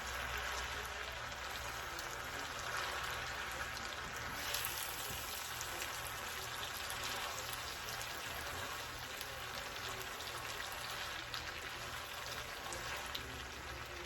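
Spaghetti with tomato and onion sauce sizzling steadily in a frying pan: a fine, even crackling hiss.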